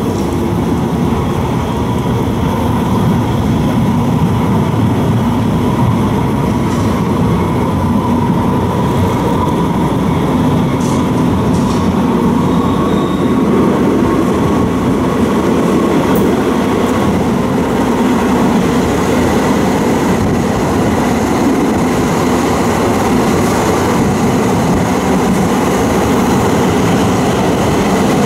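Muni Metro light rail vehicle running at speed, heard from outside the car: a steady, loud rumble of steel wheels on rail with a faint, steady high whine over it.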